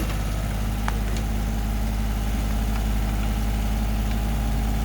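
Small diesel tractor engine running steadily while it powers a backhoe attachment, with a couple of faint clicks about a second in.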